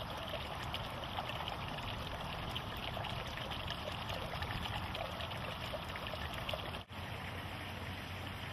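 Steady running, trickling water, with a momentary dropout about seven seconds in.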